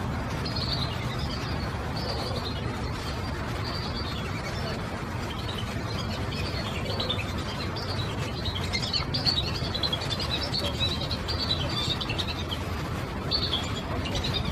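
Birds chirping: many short, high calls throughout, thickest in the second half, over a steady low rumble.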